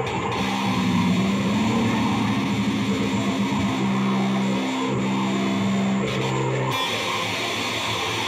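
Live noise music: loud distorted hiss over held low droning tones. About seven seconds in the low drone cuts off suddenly, leaving a thin high whine over the noise.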